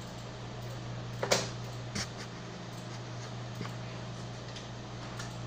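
A few sharp clicks and knocks over a steady low hum, the loudest a little over a second in and another about a second later.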